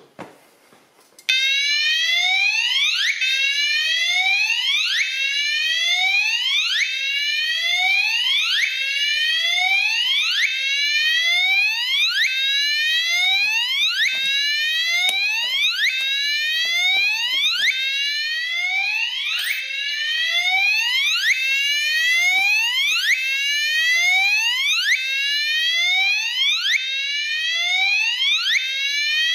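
Fire alarm signal sounding a repeating rising whoop tone, starting suddenly about a second in after the police alert pull station is pulled. A few faint knocks can be heard under it.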